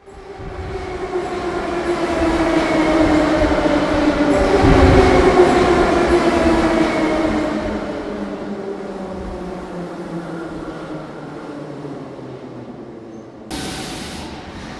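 Subway train arriving and slowing to a stop, its motor whine falling steadily in pitch as it brakes. Near the end comes a sudden hiss of air as the doors open.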